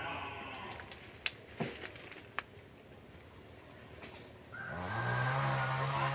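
A few sharp clicks in the first seconds, then about four and a half seconds in a chainsaw's two-stroke engine revs up quickly and runs steadily at high speed.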